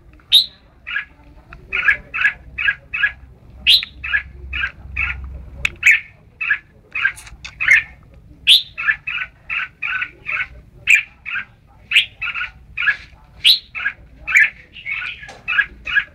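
Red-whiskered bulbul singing: quick runs of short chirping notes, about three a second, broken every second or two by sharper, louder notes that sweep upward.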